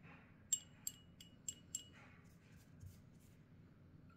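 Paintbrush clinking lightly against a small glass jar as the paint in it is stirred: five quick clinks in the first two seconds, each with a short glassy ring.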